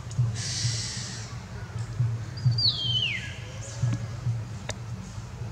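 Background music with a steady low beat about twice a second. About halfway through, a single high call slides steeply down in pitch.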